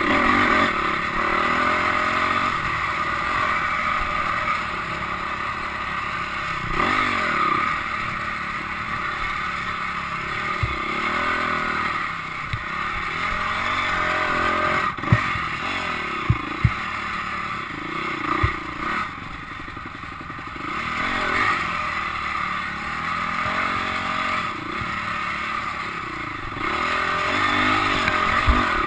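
Dirt bike engine revving up and down as it is ridden along a rough, rutted trail. A few sharp knocks come about halfway through as the bike hits bumps.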